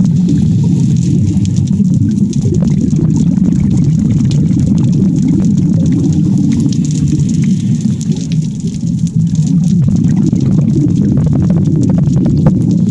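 Muffled underwater noise heard through a camera's waterproof housing: a steady low rumble of moving water with scattered faint clicks, dipping slightly about two-thirds of the way through.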